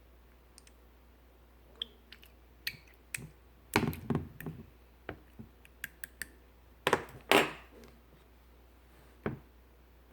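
Clear slime being played with by hand, giving a series of sharp, irregular clicks and pops, with louder bursts of crackling about four and seven seconds in.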